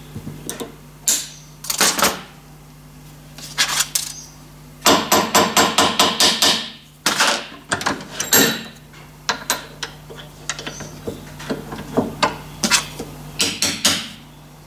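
Small hammer tapping on a split steel die block held in a bench vise, heading over aluminium wire to form a tiny countersunk rivet head. A quick run of about a dozen taps comes about five seconds in, with scattered single taps and lighter clicks before and after.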